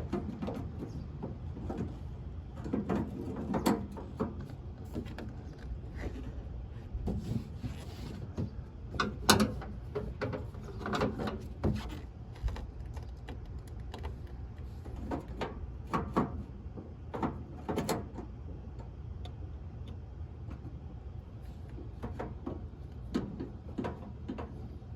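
Irregular knocks, clicks and scrapes of metal grill parts and wiring being handled and fitted back into a pellet grill during reassembly, over a steady low hum.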